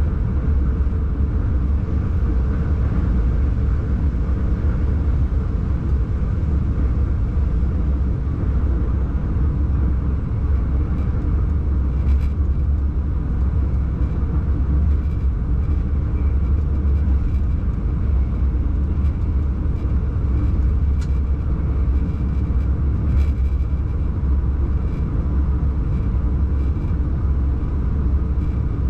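Steady low rumble of a train running along the track, heard from inside the locomotive cab, with a faint hum and a few light clicks.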